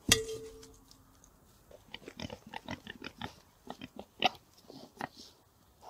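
Pigs grunting and snuffling as they root and chew in the soil, a run of short irregular grunts and crunches. It opens with one sharp knock that rings briefly.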